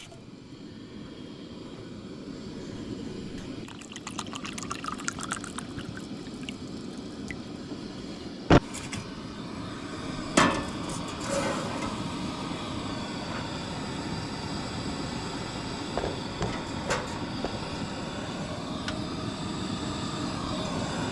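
Water being poured into a cooking pot, a steady pour that slowly grows louder. Light clicks and knocks from cookware come through it, with one sharp click about eight seconds in.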